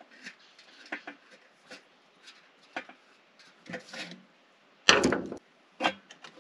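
Scattered clicks and metallic knocks of hands working at an old Dodge W300 truck's carburetor to change the choke cable, with one louder clunk about five seconds in.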